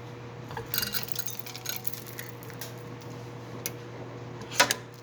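Metal and plastic grinder parts clinking and clattering in short bursts as a coffee grinder is taken apart, with the sharpest knock about four and a half seconds in. A steady low hum runs underneath.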